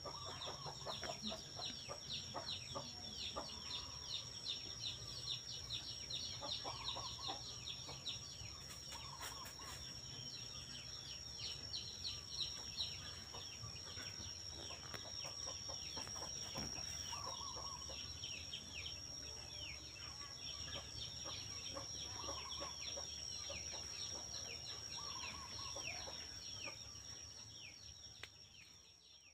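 Many small birds chirping continuously, with a few short clucks from chickens every few seconds and a steady high-pitched tone underneath.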